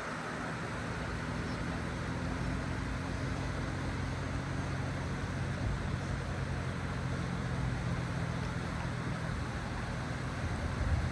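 A steady low engine drone, with wind and moving water hissing over it.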